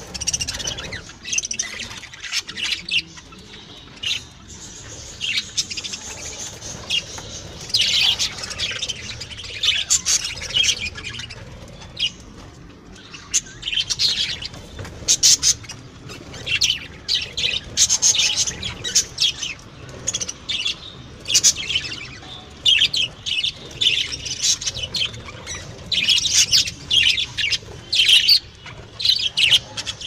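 Budgerigars chirping and chattering: many short, high chirps in irregular bursts, thicker in the second half.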